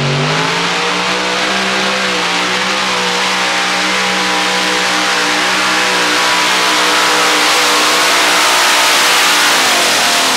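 Multi-engine modified pulling tractor running flat out under load on a pull. Its engines climb in pitch over about the first second, hold steady and high, then fall off near the end as the throttle eases.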